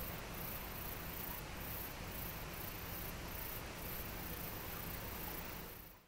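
Calm outdoor ambience: a faint steady hiss with high-pitched, pulsing insect chirring near the top of the range, fading out at the end.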